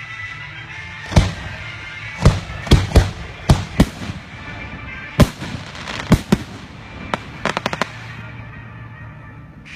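Fireworks going off: about ten sharp bangs at uneven intervals, then a quick run of smaller pops a little past the middle.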